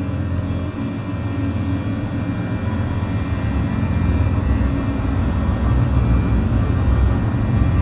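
Dark ambient background music: a steady low, rumbling drone that swells slightly in the second half.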